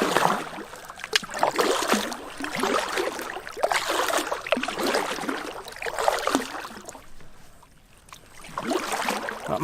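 A paddle dipping and pulling through calm water, each stroke a swell of swishing and dripping water noise. The strokes go quiet briefly about eight seconds in.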